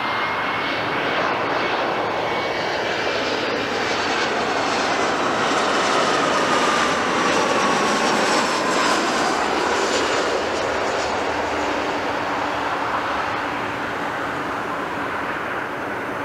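Twin turbofan engines of an Alaska Airlines Embraer 175 regional jet on landing approach, passing close by. A steady jet noise carries a whine that glides down in pitch, grows loudest about halfway through, then eases off.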